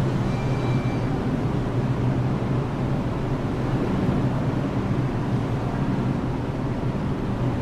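Steady low rumble of subway trains running in the tunnels of an underground station.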